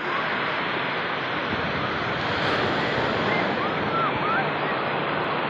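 Steady rush of ocean surf on a sandy beach, with a few faint high cries about three to four seconds in.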